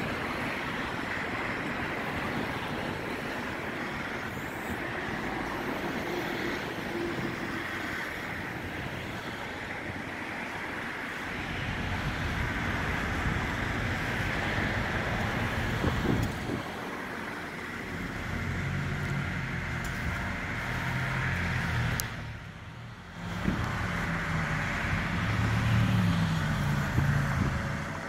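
Engine of a GMC C7500 forestry bucket truck running to drive the aerial lift's hydraulics as the boom raises the bucket. In the second half a lower, pitched engine note comes up and shifts, and the sound briefly dips once late on.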